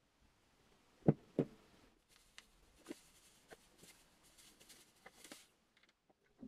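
Two dull knocks about a second in, then white powder poured from a packet into a plastic bottle of water: a soft, grainy hiss with small clicks and crinkles for a few seconds.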